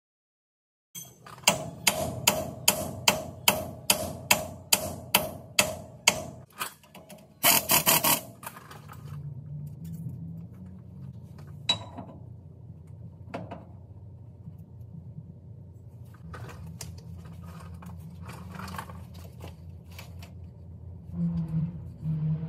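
Air impact wrench hammering on a fitting on a truck axle's steering knuckle: about a dozen separate blows roughly two a second, fading, then a short continuous rattle about a third of the way in. After that a low steady hum with a few faint clicks.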